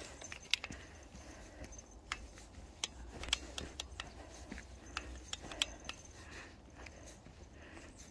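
Footsteps on a dirt trail covered in dry fallen leaves: soft crunching with irregular sharp, light clicks a few times a second.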